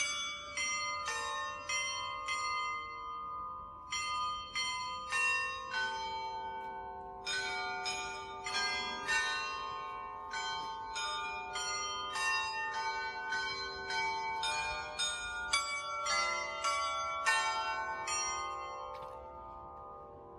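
Church bells ringing: a quick, irregular succession of strikes on bells of different pitches, their tones ringing on and overlapping. The strikes stop near the end and the ringing fades away.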